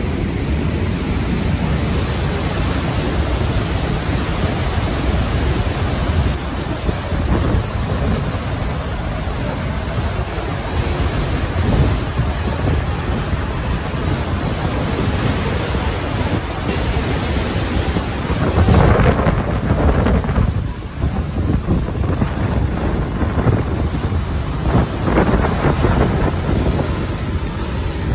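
Large waterfall rushing: a loud, steady noise of falling white water, with wind gusting on the microphone now and then, most in the second half.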